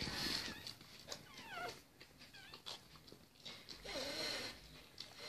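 Faint, high squeaks of a newborn Lhasa Apso puppy: a few short cries that rise and fall in pitch. A lower whimper comes near the end.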